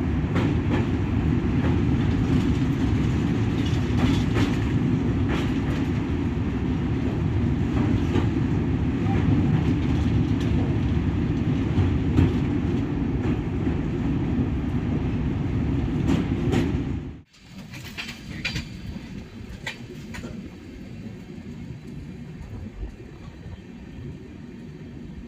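Train crossing a railway bridge: a loud, steady low rumble with scattered clicks of wheels passing over rail joints. About two-thirds of the way through it cuts off abruptly, leaving a much quieter rumble with a few clicks.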